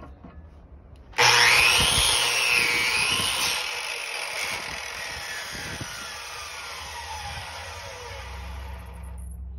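Corded electric chop saw switching on about a second in, its freshly fitted blade cutting through a firewood branch, loudest for the first couple of seconds. The motor whine then falls steadily in pitch as the blade coasts down, stopping near the end.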